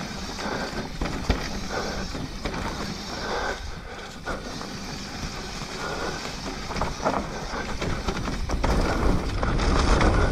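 Mountain bike riding down a dirt trail: tyre noise and knocks and rattles from the bike, with wind rumbling on the microphone. It gets louder over the last couple of seconds as speed builds.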